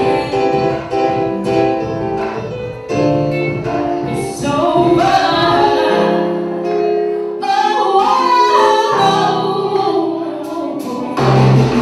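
A woman sings a slow, sliding melody into a microphone with a live band of keyboards and bass guitar behind her. Her voice glides between notes on long held lines.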